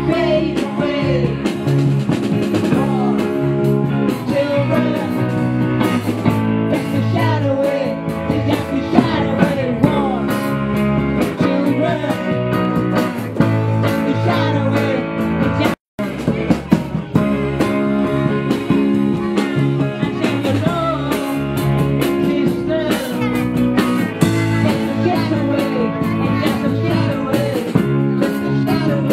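Live band playing a song on electric guitars, with singing over it. The sound cuts out for a split second about halfway through.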